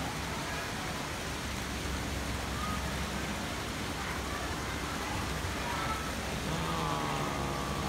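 Steady outdoor background noise with no clear single source, with faint distant voices now and then and a clearer faint voice from about six and a half seconds in.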